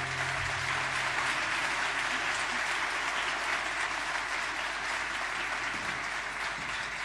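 Concert hall audience applauding steadily at the end of a choir piece, the clapping easing off slightly near the end.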